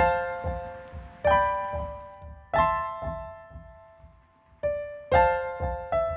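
Background music: chords struck about every second and a quarter, each one fading away before the next, over a soft low pulse.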